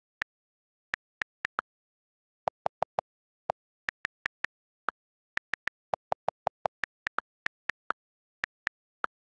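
iPad on-screen keyboard key-click sounds as a message is typed: about thirty short, crisp ticks at an uneven typing pace, with two quick runs of lower-pitched clicks among them. Between the clicks there is dead silence.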